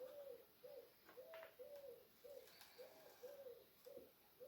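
A dove cooing faintly and repeatedly, short rise-and-fall notes about two a second.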